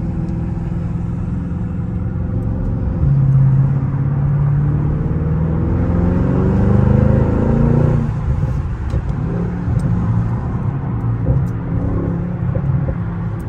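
Mercedes-AMG GLE 63 S twin-turbo V8 heard from inside the cabin under hard acceleration. The engine note rises steadily for about five seconds from about three seconds in, drops sharply at a gear change, then runs on at lower revs.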